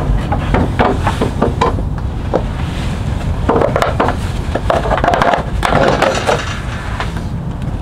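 Toyota Sequoia side running board being worked off its mounting brackets by hand: a run of knocks, clanks and scraping clatter as it comes free and is set on the pavement, over a steady low rumble.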